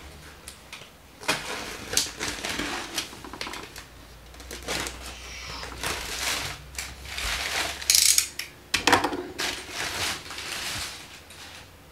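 A plastic-wrapped cardboard shipping box being slit open with a utility knife and its flaps pulled back: a run of irregular crackles, scrapes and tearing rustles, with one sharp crackle about eight seconds in.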